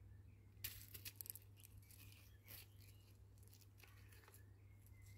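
Near silence: a faint low steady hum with a few faint short ticks and rustles, the clearest about a second in.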